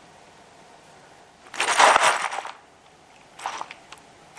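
Loose steel bolts, nuts and washers rattling in a cardboard box as it is handled, in separate bursts; the loudest comes about a second and a half in and lasts about a second, with a shorter one just after the three-second mark.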